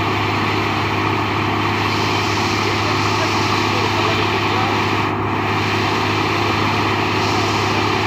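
New Holland combine harvester running steadily while its unloading auger pours threshed wheat onto the ground, a loud continuous engine and machinery drone with a constant low hum.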